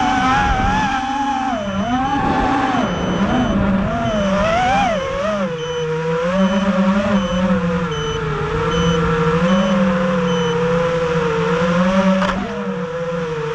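FPV racing quadcopter's brushless motors (Racerstar 2205 2300kv, spinning three-blade 5045 props) whining, the pitch rising and falling with the throttle, then settling lower and steadier in the second half.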